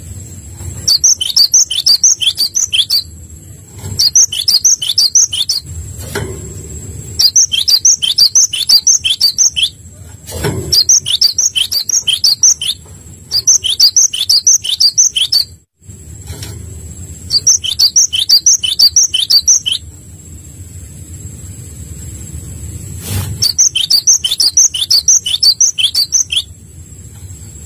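A songbird singing runs of rapid, high chirps, each run about two seconds long and repeated after short pauses. A faint steady high whine and a low rumble sit underneath.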